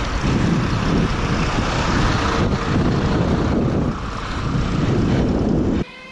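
Wind buffeting the helmet camera's microphone, with mountain-bike tyres rolling on asphalt, while riding along a street; the rumble cuts off suddenly near the end.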